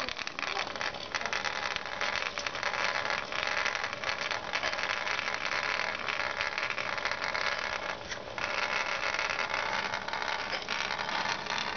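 Hexbug Nano vibrating robot bugs buzzing and rattling against a plastic track: a steady, dense clatter of fast small ticks.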